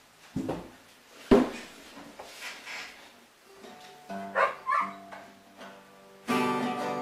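Acoustic guitar: a couple of knocks early on, the loudest about a second in, as the player settles onto the wooden chair with the instrument. Then a few single notes are plucked and left ringing, and a full chord is strummed near the end.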